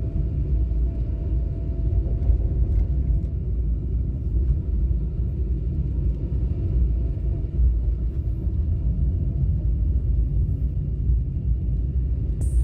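Car driving along a road: steady low rumble of road and engine noise.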